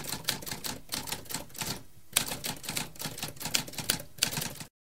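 Typewriter keys clattering in a rapid run of keystrokes, with a brief pause about two seconds in, then stopping abruptly just before the end.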